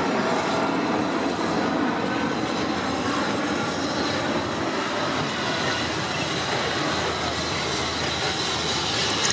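LSWR M7-class 0-4-4T steam tank engine propelling a brake van slowly toward and past, a steady running rumble of the train, with a thin high tone coming in during the second half.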